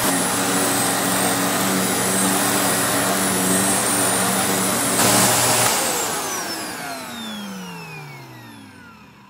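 Vacuum cleaner running at full power with a steady hum and high whine, then switched off about five and a half seconds in, its motor winding down in a long falling whine that fades out.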